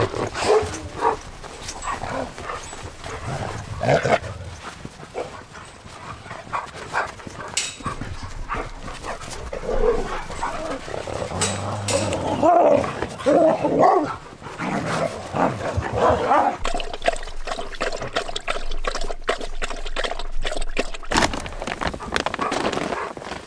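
Several Siberian huskies barking in many short calls, busiest about halfway through.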